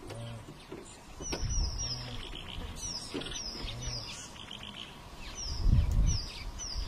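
A small bird chirping: short falling chirps, mostly in quick runs of three, repeated several times. Low rumbles come in underneath, the loudest shortly before the end.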